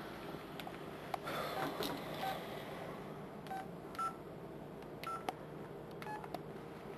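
Mobile phone keypad tones as a number is dialled: about six short beeps at uneven intervals, some with faint button clicks.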